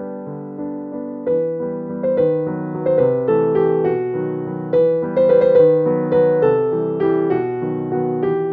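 Background piano music, a light melody of struck notes that fade, getting busier about a second in.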